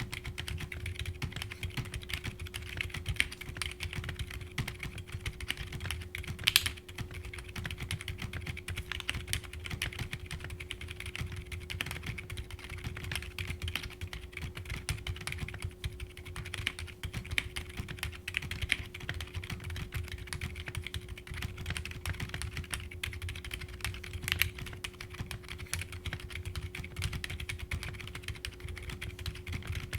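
Continuous typing on a mechanical keyboard fitted with Akko Penguin silent tactile switches, with nylon housings, POM stems and silicone dampening pads: muted, soft keystrokes. A couple of sharper key hits stand out, one about six and a half seconds in and one near twenty-four seconds.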